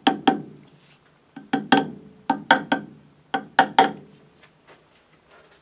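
Soft-faced mallet tapping a 3D-printed plastic wheel held in a lathe chuck, about nine light taps in quick groups of two or three, each with a short ring, to seat the part squarely in the chuck.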